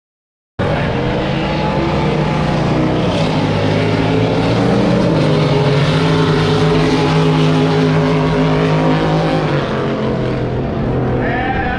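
Race boat engines running loudly and steadily, with several engine tones drifting slightly in pitch. The sound cuts in suddenly about half a second in.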